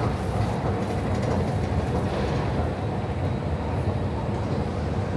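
Escalator running while it is ridden downward: a steady low mechanical rumble from its moving steps and drive.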